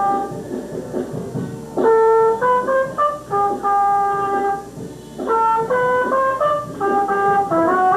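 A brass instrument playing a slow melody: a held note, then short runs of notes stepping upward, another long held note about three seconds in, and more rising runs near the end.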